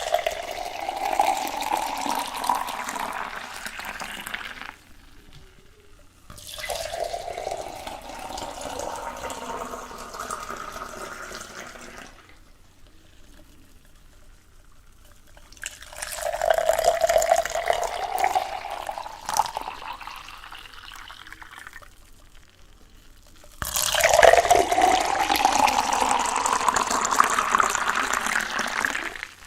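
Water pouring into a container four times in separate spells of about five seconds each. Each time the tone rises in pitch as the vessel fills.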